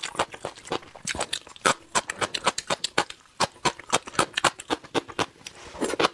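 Close-miked chewing and mouth sounds of a person eating crunchy vegetable strips from a spicy braised dish: a dense run of crisp wet clicks and smacks, several a second, with a brief lull a little past the middle.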